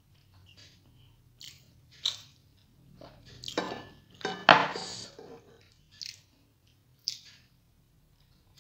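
Eating rice and egg curry by hand: fingers squishing food on the plate and in the curry bowl, with chewing and wet mouth sounds. Short clicks and squishes, loudest about halfway through while the fingers work in the curry.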